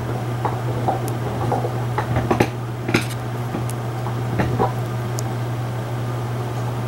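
Dog chewing on a bone: scattered crunching clicks over a steady low hum.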